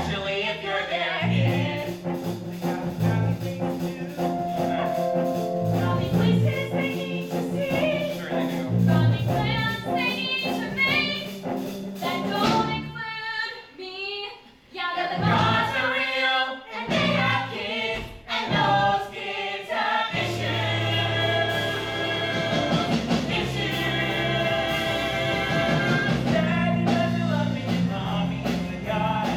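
Musical theatre song: singers with musical accompaniment. The music thins to sparse lines with short gaps about halfway through, then a fuller ensemble sound comes back in.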